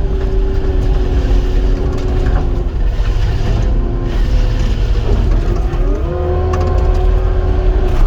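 Cat 259 skid steer running under work, its engine and hydraulics holding a steady pitch that rises and stays higher about six seconds in, with a few light knocks.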